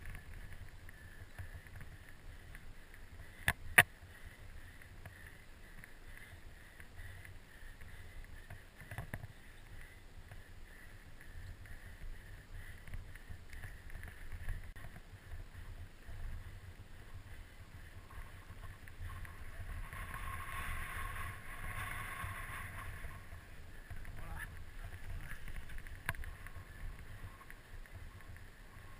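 Mountain bike ridden down a dry dirt singletrack, heard from a helmet camera: wind buffeting the microphone with the rumble and rattle of tyres on the trail. Two sharp knocks come a little over 3 seconds in, and the rushing grows louder for a few seconds about two-thirds of the way through.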